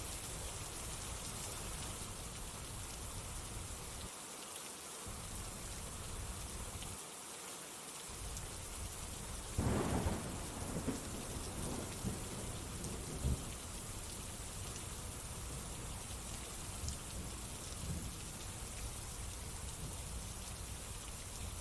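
Steady rain falling, with a roll of thunder starting about ten seconds in and rumbling on for a few seconds.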